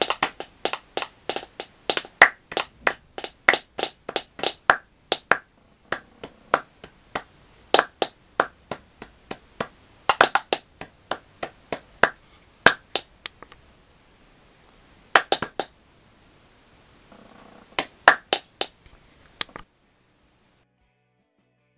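Hand claps and finger snaps played as a rhythmic percussion pattern, with sharp strokes a few a second and short pauses between phrases. The sound stops suddenly near the end.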